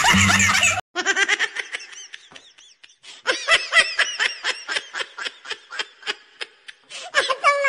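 Laughter: a run of rapid, high-pitched giggling bursts that starts right after a sudden cut about a second in. It thins out briefly and comes back stronger about three seconds in.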